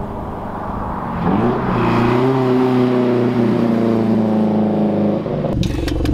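Subaru BRZ's flat-four engine through a straight-piped, valved center-exit exhaust with the valves open, making a soft launch past: the revs climb about a second in and hold steady as the car goes by. Near the end a cut brings in a steady, lower exhaust note.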